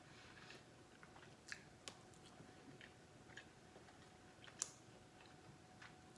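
Faint chewing and mouth sounds of a person eating ribs and chicken, with a few soft clicks; the sharpest comes a little past the middle.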